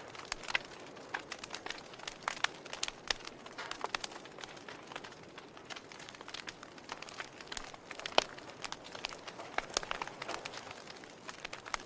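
A fire crackling: irregular sharp pops and snaps over a steady low hiss, with one louder pop about eight seconds in.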